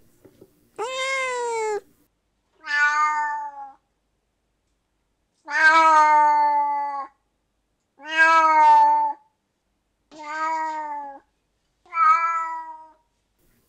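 A domestic cat meowing six times, one drawn-out meow about every two seconds. The first call rises and falls in pitch; the later ones sit lower and flatter.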